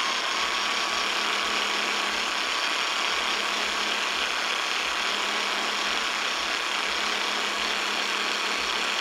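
FLEX polisher running steadily with a foam pad-cleaning brush held lightly against the spinning foam polishing pad, scrubbing built-up compound and clear-coat dust out of the pad's clogged cells. A constant motor hum and whine under an even scrubbing hiss.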